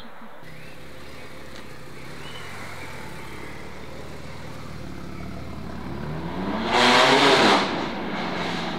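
Modified BMW's engine running low and steady, then accelerating hard about seven seconds in: a short, loud burst of revs rising in pitch that eases off after about a second.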